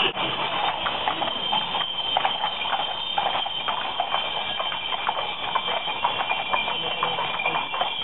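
Hooves of several horses clopping irregularly on a paved street, with a steady high ringing above them.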